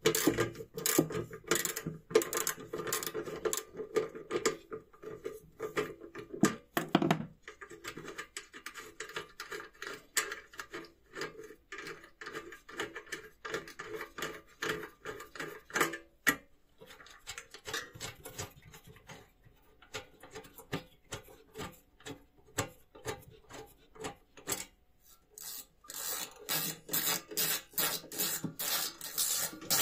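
Ratchet wrench clicking in quick runs as a nut is undone on the sheet-metal housing of an old slide projector, followed by sparser metal taps and scrapes as parts are handled. Near the end a screwdriver works a screw in the projector's metal plate with a quick run of scraping clicks.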